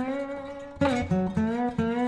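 Background music: plucked acoustic guitar playing single notes and chords, each ringing out and fading before the next.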